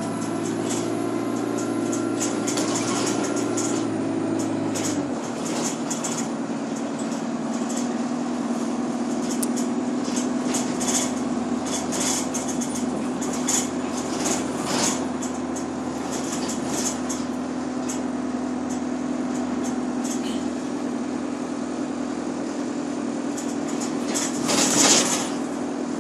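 Inside a moving bus: the engine's steady drone with clicks and rattles from the body and windows. The engine note changes about five seconds in, and a brief loud rush of noise comes near the end.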